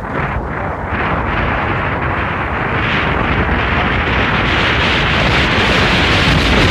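Wind rushing hard over the microphone of a moving motorcycle, mixed with engine and road noise, growing a little louder toward the end.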